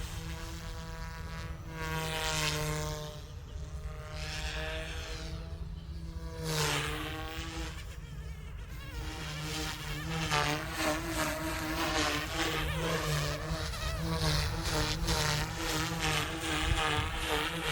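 Goosky S2 electric RC helicopter in flight, its motor and rotor whine rising and falling in pitch as it manoeuvres.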